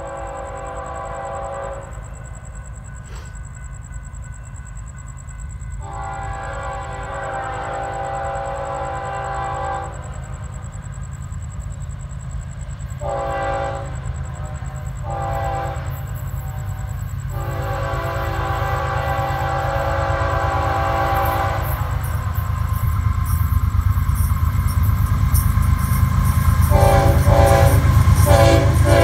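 Approaching diesel freight locomotive sounding its chord air horn in a series of blasts: long ones, two short ones, another long one, then several quick short blasts near the end. Underneath runs a low rumble of engines and train that grows louder as it nears.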